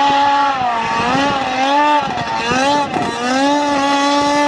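John Deere Gator UTV with a swapped-in 100 hp two-stroke snowmobile engine running hard at high revs. The engine note dips and climbs a few times in the middle, then holds steady and high.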